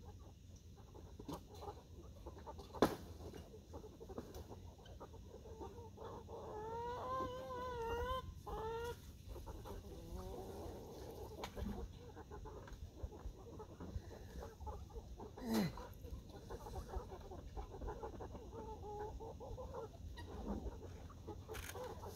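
Domestic chickens clucking, with a long wavering call about a third of the way in. Two sharp knocks stand out, one early and one past the middle.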